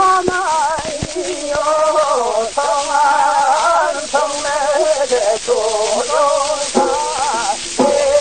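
Male voice singing a Gyeonggi shaman ritual song (muga) in short phrases with a wavering vibrato, over the constant crackle and hiss of a 1926 record.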